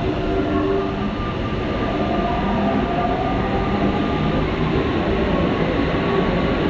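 Paris Metro MP89 rubber-tyred metro train running, its traction motors whining in several tones that shift in pitch, one rising about midway, over steady running noise.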